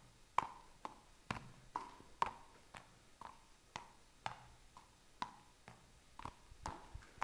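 Three small balls being juggled by hand: a steady run of faint soft taps, about two a second, as each ball lands in a palm.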